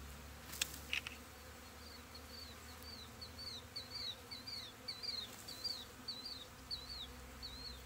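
A swarm of honeybees buzzing around open hive frames, a steady low hum. Two sharp clicks come in the first second, and from about two seconds in short high chirps repeat about three times a second.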